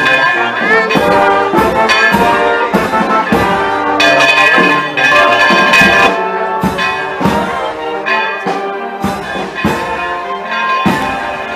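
Brass band playing a march, with brass chords over a steady drum beat; it grows fainter in the second half.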